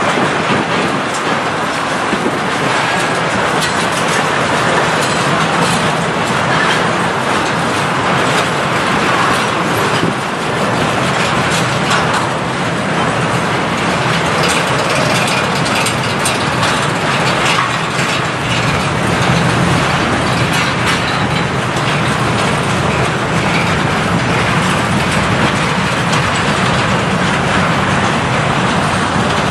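Freight train rolling past steadily, its wagon wheels clattering on the rails.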